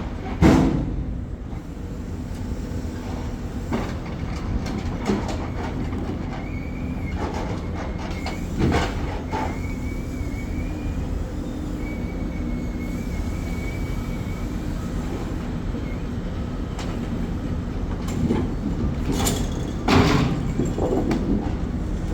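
Heavy machinery running with a steady low engine hum, with loud metal clanks about half a second in, around nine seconds and near the end, and a thin high squeal on and off in the middle.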